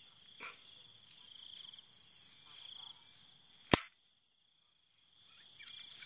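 A spring-loaded metal rat snap trap snaps shut once, sharply, a little under four seconds in. It is sprung on purpose so it can be picked up safely. Insects trill faintly and steadily in the background.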